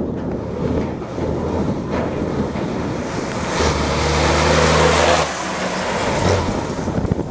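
Rally-raid race truck's diesel engine driving fast along a gravel track and passing close by, with tyre and gravel noise; it is loudest between about three and a half and five seconds in, holding a steady engine note, then drops away.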